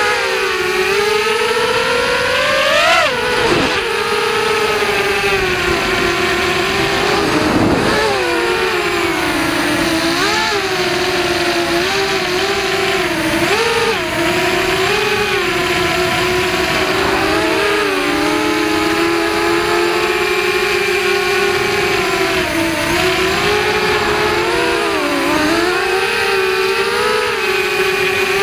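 FPV racing quadcopter's four 2205 2350kv brushless motors and propellers whining, the pitch rising and falling constantly with the throttle. There are sharp swoops about 3 and 8 seconds in, and a climbing whine near the end.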